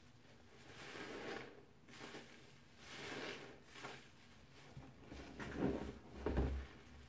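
A stack of soapy kitchen sponges squeezed by hand, squelching foam and water out in slow squeezes a couple of seconds apart. Near the end the hands plunge into the soapy water with two louder sloshes.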